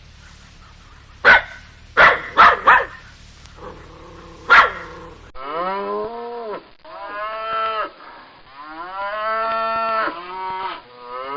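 Five short, sharp animal calls in the first half, then, after a cut, cattle mooing: about four drawn-out moos, one after another.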